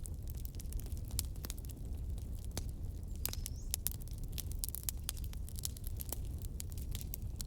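Campfire burning: a steady low rumble of flame with frequent, irregular sharp crackles and pops from the burning wood, and a brief high whistle about three seconds in.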